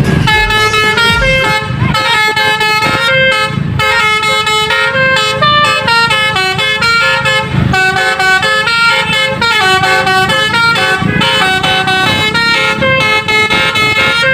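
Basuri V3 multi-tone 'telolet' horn playing a melody in quick stepped notes, one tone following another without a break.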